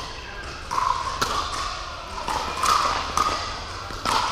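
Pickleball paddles hitting a hard plastic ball during a rally: a series of sharp pops, several within a few seconds.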